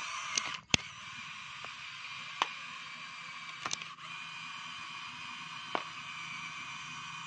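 Small electric gear motors of a radio-controlled toy excavator whining steadily as its boom and arm move, with a few sharp clicks along the way. The whine breaks off briefly under a second in, then runs on.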